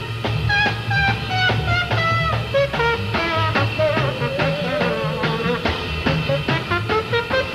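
Swing jazz band playing: a fast melodic solo line of short notes over bass and drums.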